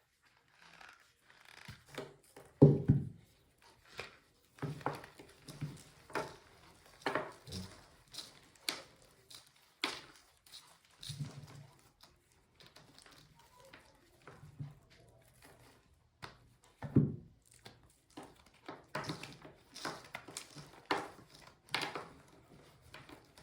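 A block of reformed starch being squeezed and crumbled, giving irregular squeaky crunches. Two heavier, deeper crunches stand out, one about three seconds in and one a little past the middle.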